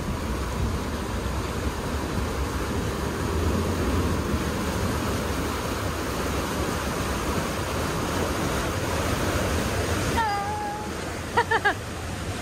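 Whitewater rushing steadily along the concrete channel of a river-rapids raft ride, with wind noise on the microphone. Near the end a brief held voice sound, then three short vocal bursts.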